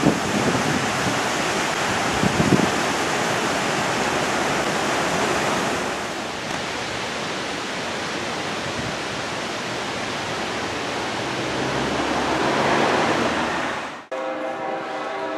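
Steady outdoor rushing noise with low gusts of wind on the microphone near the start. About fourteen seconds in it cuts off abruptly, and a steady pitched tone with several overtones begins.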